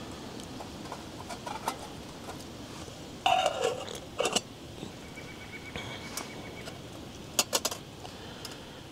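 A titanium lid is fitted onto a titanium cook pot. There is a metallic scrape with a falling ring about three seconds in, then light clinks of the lid and wire handles, with a quick cluster of clicks near the end, over a faint steady hiss.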